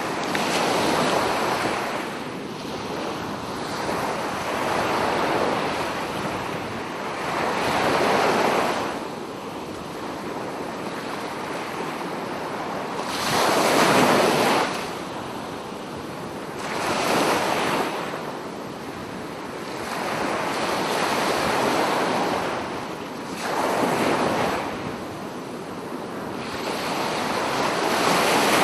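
Waves breaking and washing up on a beach, the surf swelling and falling back about eight times, every few seconds. The biggest surge comes about halfway through.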